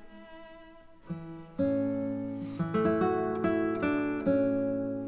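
Background music on acoustic guitar: soft notes at first, then louder plucked notes from about a second and a half in, each note dying away before the next.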